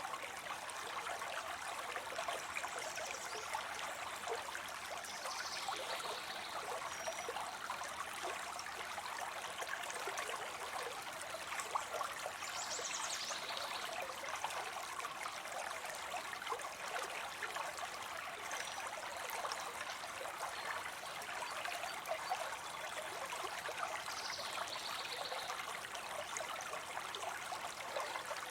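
Water spilling steadily into a pond, a continuous trickling splash.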